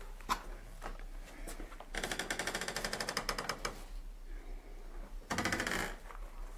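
Door of an old wooden wardrobe creaking on its hinges as it is moved, a fast rattling creak of under two seconds about two seconds in and a shorter one near the end. A couple of light knocks come just before.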